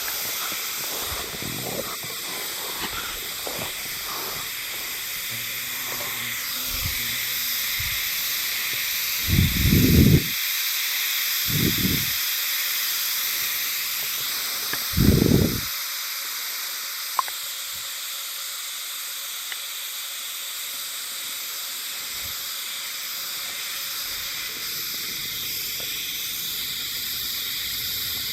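Himeharuzemi cicadas (Euterpnosia chibensis) singing, a steady high shrill drone. Three brief low rumbles break in partway through.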